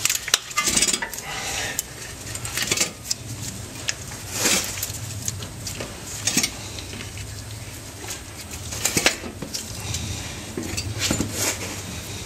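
Scattered metallic clinks and knocks of steel suspension parts and hardware being handled and shifted as an upper control arm's ball joint is lined up with the spindle, over a faint low hum.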